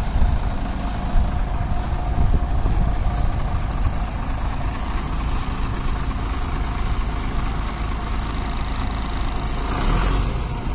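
Tata heavy truck's diesel engine running at low speed as the truck crawls down a steep, rough dirt track, with a steady low rumble. A short burst of hiss comes near the end.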